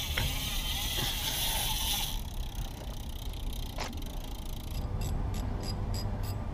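A steady hiss for about two seconds, then a single click. From about five seconds in, evenly spaced mechanical ratcheting clicks run at about three a second during the bicycle work.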